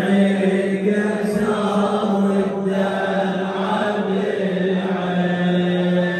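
Male voices chanting a Shia latmiya mourning lament, a steady low-pitched chant that is held with hardly a break.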